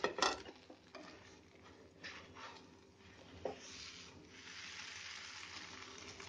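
Bread sandwiches toasting in ghee on a nonstick pan, with a large spatula flipping one over. There are a few light taps and scrapes of the spatula on the pan, then a faint, steady sizzle about halfway through.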